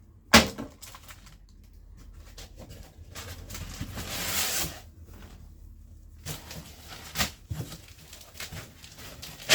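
Parts and packaging being handled during an unboxing: a sharp knock just after the start as something is set down, a rustling, scraping stretch of packaging or plastic about 3 to 5 seconds in, then scattered clicks and taps.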